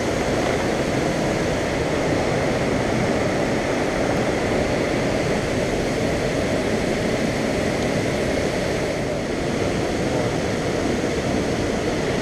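Steady rush of water pouring over a dam, an even noise that holds at one level throughout.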